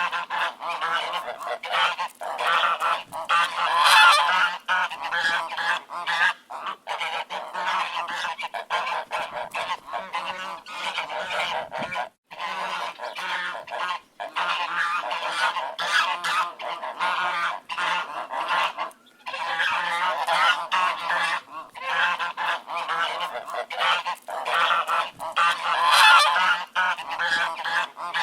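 A flock of ducks quacking without pause, many loud calls overlapping one another, with a few brief gaps.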